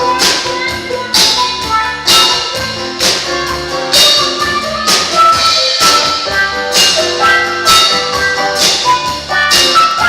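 Band music without singing: a steady drum beat under a banjo played through a wah-wah pedal.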